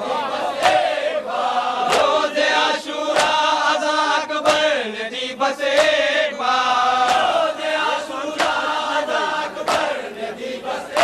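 Group of men chanting a nauha (Muharram lament) together, over sharp rhythmic slaps of matam, hands striking chests, about three strikes every two seconds.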